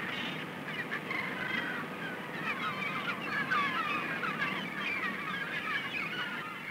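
A flock of birds calling, a dense chatter of many short, overlapping cries that rise and fall in pitch without a break.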